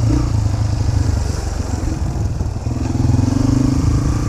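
Honda CRF150F dirt bike's single-cylinder four-stroke engine running as the bike is ridden. It eases off briefly midway through and then picks up again.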